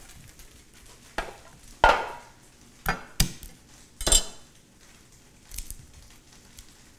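Chef's knife striking a garlic clove on a wooden cutting board as the clove is smashed and prepared: about six sharp knocks spread over five seconds, the loudest about two seconds in.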